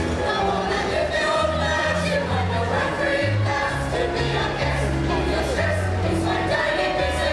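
A group of amateur pantomime singers singing a song together over an instrumental backing with a bass line that moves note by note.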